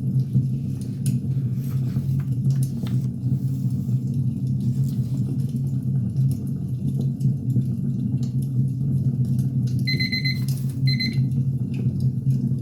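Wood fire crackling, with a steady low rumble and scattered small pops. About ten seconds in, an electronic timer beeps twice in a high tone, signalling the end of the ten-minute session.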